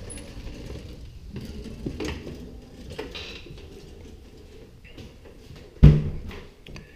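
Scattered clicks, knocks and footsteps of someone coming in through a front door and walking across a tiled floor, with one louder thump about six seconds in.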